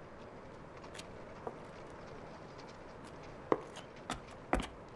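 Shoes knocking and scuffing on roof slates: a few sharp, irregular knocks over a faint steady hiss, the loudest about three and a half seconds in.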